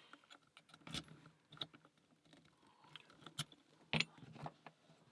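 Scattered small metal clicks and taps from a Master Lock M1 padlock and lock-picking tools being handled, with sharper knocks about a second in and around three and a half to four seconds in.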